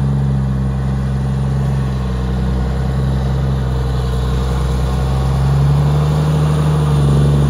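Large diesel engine running at steady revs under field work, its note rising slightly about two-thirds of the way through.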